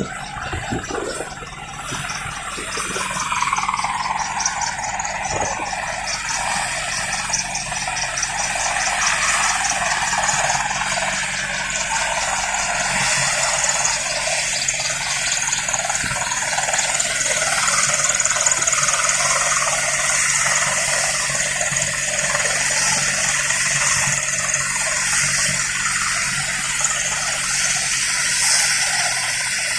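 Helicopter engine running with a steady high whine and a rushing hiss; a tone in the whine falls in pitch over the first few seconds.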